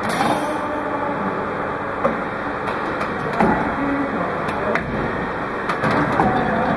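Automatic CO2 cylinder filling machine for soda-maker cylinders running: a steady mechanical din with a short hiss of gas at the start, then a series of sharp clacks and knocks from the clamps and valves.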